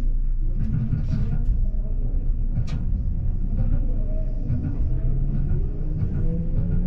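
Nankai electric train accelerating out of a station, heard from just behind the driver's cab: a steady low running rumble with a few sharp clicks, and a faint motor whine rising in pitch from about four seconds in.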